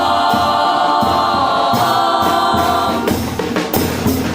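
Murga chorus singing a long held chord over steady drum beats; about three seconds in the voices fall back and the drums come forward.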